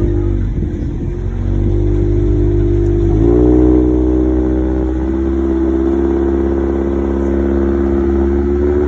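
Car engine running under load. Its pitch dips early, rises sharply about three seconds in, then keeps climbing slowly as the vehicle accelerates.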